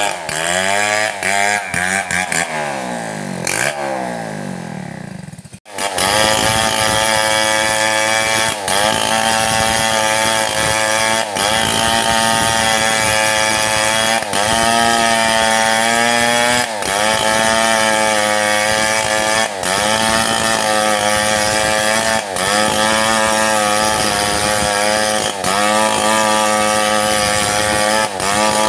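Chainsaw cutting into a mahogany log. Its revs fall away over the first few seconds, then at about six seconds it opens back up to full throttle. It runs hard from there, with a short dip in revs every few seconds.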